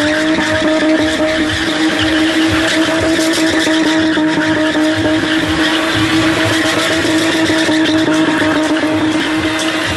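Rear-wheel-drive sedan spinning doughnuts: the engine is held at steady high revs while the rear tyres spin and screech against the tarmac. One steady pitch is held throughout.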